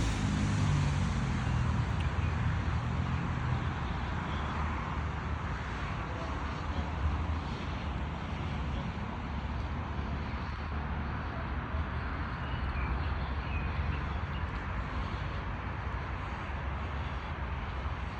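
City street traffic. A vehicle's engine passes and fades in the first second, then a steady rumble of road traffic goes on, with a few faint high chirps.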